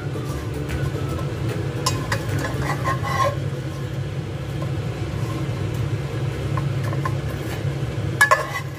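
Metal spatula scraping and knocking against a nonstick frying pan as slices of bread are turned, with a few sharp clicks, the loudest near the end, over a steady low hum.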